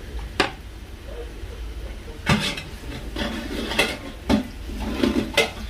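Long metal ladle stirring mutton pieces in gravy in a large metal cooking pot, knocking and scraping against the pot about half a dozen times, over a steady low hum.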